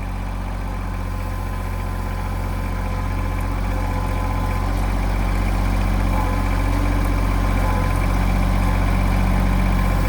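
Tractor engine running steadily at low revs, growing slowly louder.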